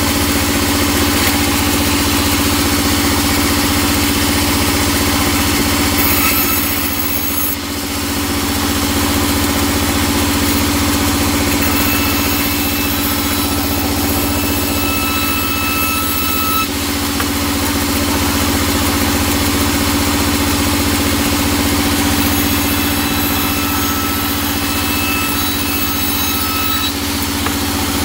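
A sawmill band saw running steadily with a loud machine drone as teak boards are pushed through the blade. A thin whine rises over it twice, for a few seconds each, while a board is in the cut. The blade labours in the hard teak, and the sawyer finds it blunt.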